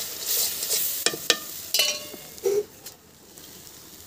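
Bhujia sabzi sizzling in a pan on a gas stove while a spoon stirs it, with sharp clicks about a second in and a ringing metal clink near two seconds. The sizzling drops to a faint hiss in the second half.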